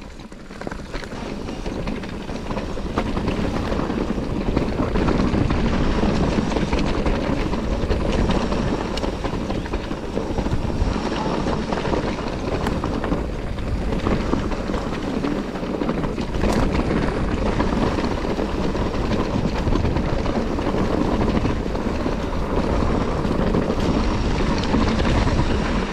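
Mountain bike riding down a steep, rough trail: a steady rush of wind on the microphone mixed with tyre noise over rocks and dirt, building over the first few seconds, with a few sharp knocks from the bike hitting bumps.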